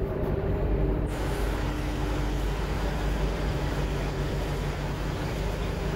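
Water taxi's engines running steadily, a low rumble with a faint hum that fades out about halfway through.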